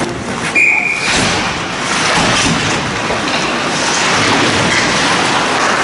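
Ice hockey rink during play: a steady noisy din of skating and arena bustle, with a short, high, steady tone about half a second in.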